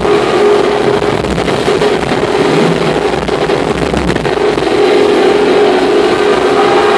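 Live rock band playing loudly, heard from the crowd: a held droning note over a dense, distorted wash of instruments, growing a little louder near the end.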